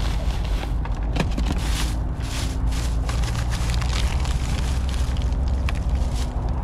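Plastic bags and ice packs crinkling and rustling in a cooler as hands dig through it and lift out a zip-top bag, in many short sharp crackles over a steady low rumble.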